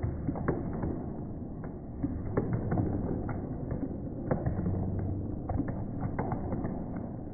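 Muffled background noise of a busy gymnasium, with scattered irregular knocks and clicks over a low hum.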